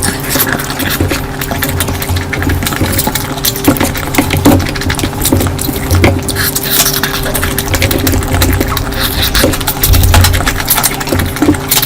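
Close-miked eating: continuous wet chewing, smacking and mouth clicks, over a steady low hum.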